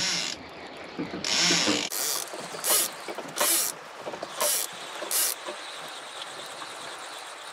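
Sea fishing reel being wound in against a heavy weight on the line, its gears whirring and clicking in five short spurts roughly a second apart.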